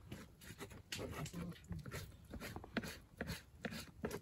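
Knife chopping cucumber on a plastic cutting board: irregular short knocks, two or three a second.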